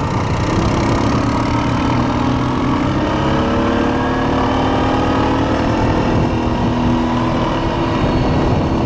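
ATV engine running under throttle on a sandy dirt trail, its pitch climbing slowly as the quad picks up speed.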